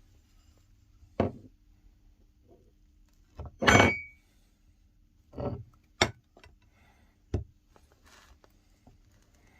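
About six separate knocks and clinks of objects being handled, the loudest and longest about four seconds in.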